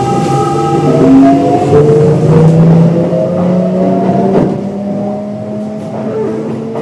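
Hitachi GTO-VVVF inverter traction motors of a Kintetsu 1026 series electric train accelerating from a stop, their whine rising in pitch in steps from about a second in. A few knocks from the wheels over rail joints.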